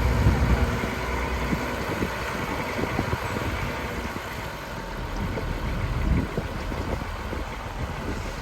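Heavy diesel engine of earthmoving machinery running steadily, loudest at the start and easing after about a second, with a few light knocks.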